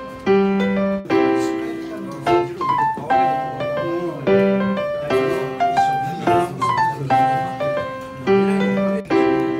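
Background music: solo piano playing a light, repeating melody of struck notes.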